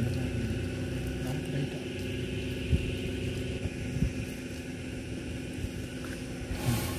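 A steady low machine hum, with a few faint knocks and a short burst of hiss near the end.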